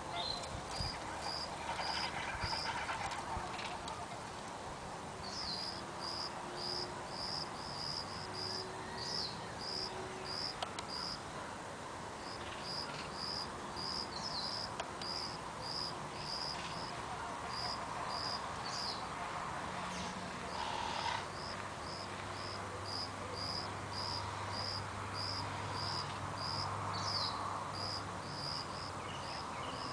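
An insect chirping steadily, short high chirps at about two to three a second, over outdoor background noise. A low hum rises in the second half.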